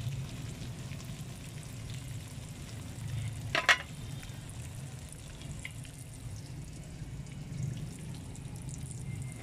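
Butter and olive oil sizzling in a wok, with a sharp metallic clink about three and a half seconds in as the metal ladle strikes the pan.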